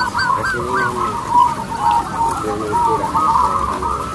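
A chorus of many caged zebra doves (perkutut) cooing at once, their short, high notes overlapping without a break.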